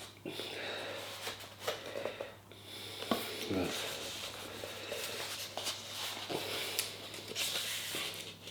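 Pages of a book being leafed through: soft paper rustles and small knocks, irregular, over a steady low hum.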